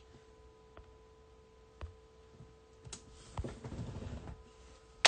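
Quiet small-room tone with a faint steady hum and a few soft ticks, then some low rustling and a sharp click at the very end.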